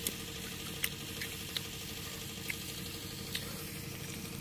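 Crisp crunches of a raw Indian gooseberry (amla) being chewed, about once a second, over a steady low hum.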